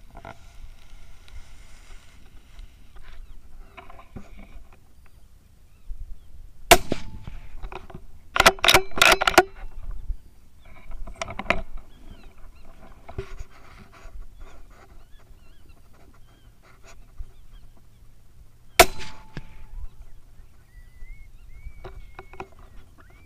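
Gunshots: a sharp report about seven seconds in and another near nineteen seconds, with a quick run of loud, sharp cracks around eight to nine seconds.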